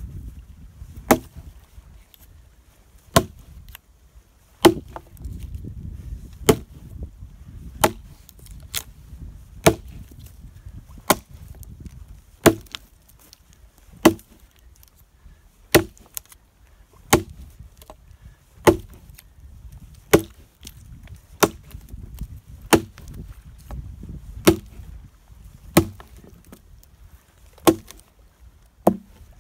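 An axe chopping into a dead log, knocking out wood chips: about nineteen sharp strikes at a steady pace of roughly one every second and a half.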